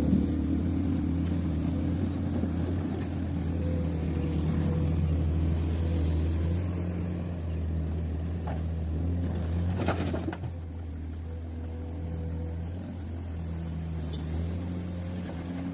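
Heavy diesel engine running steadily at a low, even drone on the excavator or dump truck. Two short knocks come about eight and ten seconds in, after which the engine drops a little quieter.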